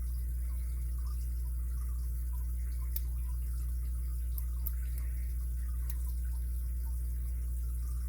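Faint small ticks and a few sharp clicks of a lock pick working the pins of an ABUS 83CS80 padlock held in a deep false set, over a steady low electrical hum.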